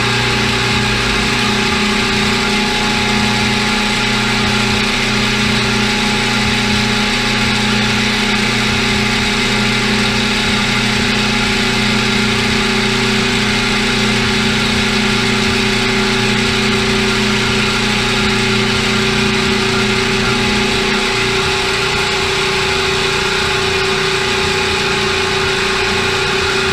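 CNC milling machine spindle turning a half-inch end mill at about 1700 RPM, taking a light, slow-feed cut in aluminum: a loud, steady machine hum and whine. Near the end a lower part of the hum drops away.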